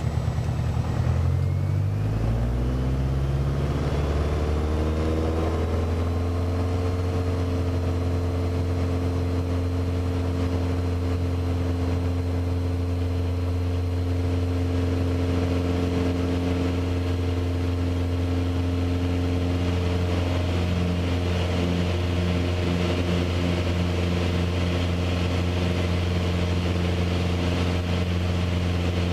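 Light aircraft's engine and propeller opened up to full takeoff power, the pitch rising over the first several seconds, then running steady at full power.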